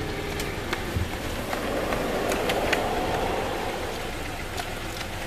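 Roadside traffic noise: a steady hiss that swells in the middle, with a few faint clicks.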